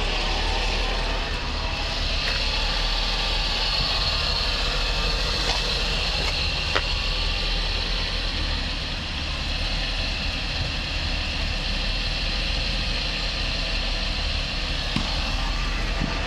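Opel Astra H running with a steady mechanical noise and a few faint clicks.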